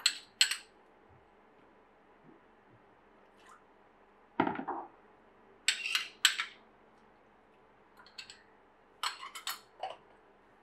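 A spoon clinking and scraping against a small bowl in short scattered taps while yeast mixture is scraped out into flour, with one duller knock about four and a half seconds in.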